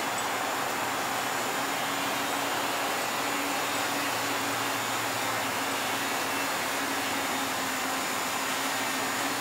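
Large multirotor camera drone hovering, its propellers giving a steady hum that wavers slightly in pitch, over a steady rush of river water.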